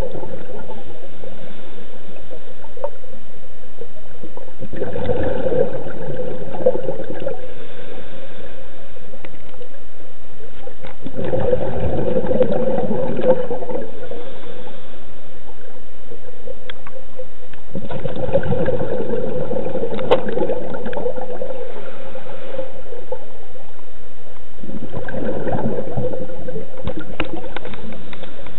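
Scuba diver's regulator underwater: four bursts of exhaled bubbles, about six to seven seconds apart and each lasting a few seconds, with quieter stretches of breathing between them.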